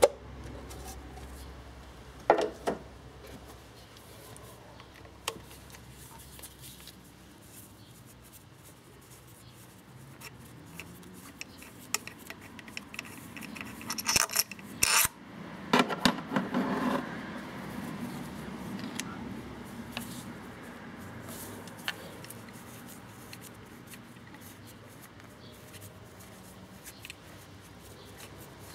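Scattered clicks, knocks and rubbing of plastic engine parts as gloved hands unclip hoses and work the cover and ignition coil cassette on an Opel Corsa 1.2 Twinport Ecotec engine. A few sharp clicks come early, and a denser cluster of clicks and rattling comes about halfway through.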